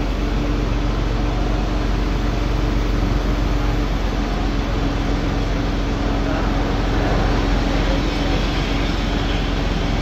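Truck-mounted basket crane's engine and hydraulic pump running steadily as the boom moves the loaded basket, a constant low rumble with a steady hum on top that fades about eight seconds in.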